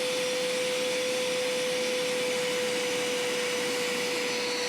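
Hoover carpet washer's suction motor running with a steady whine, drawing spilled soda up through its hose.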